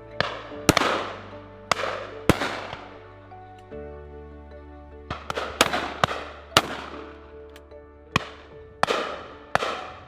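Shotguns firing at driven game birds: about ten sharp reports, some in quick pairs, each trailing off in an echo. A steady background music bed runs underneath.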